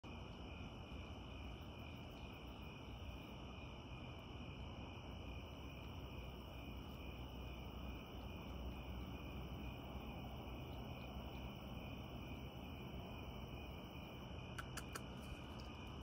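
Crickets chirping in a steady, faint night chorus with a high trill over low background noise. A few faint clicks come near the end.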